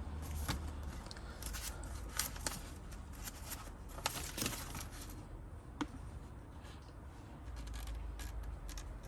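Faint handling noises: scattered light clicks and rustles, likely from the brake controller kit's parts and paper being moved about, over a low steady hum.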